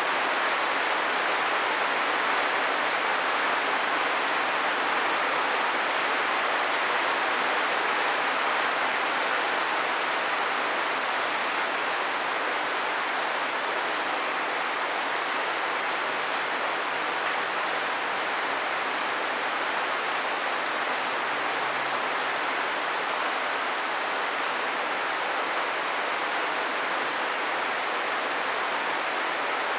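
Steady rain falling: an even, unbroken hiss of drops with no let-up.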